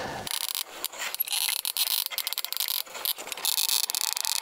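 Caulking gun being handled and worked: a quick run of clicks and scraping, with stretches of hiss.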